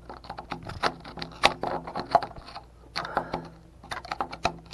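Flat-blade screwdriver scraping and chipping at heavy rust and corrosion around an electric water heater's heating element, in quick, irregular scrapes and clicks of metal on metal.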